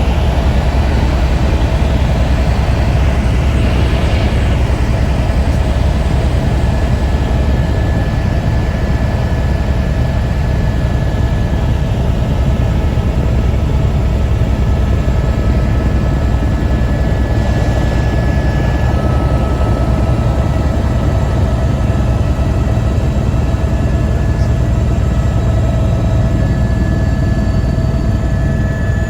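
Helicopter in flight heard from inside the cabin: a steady, loud rotor and engine drone with faint steady whining tones above it.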